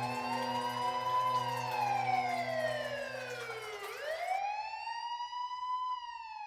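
Police siren wailing, sliding slowly up and down about every four seconds. A low steady hum underneath stops about three and a half seconds in.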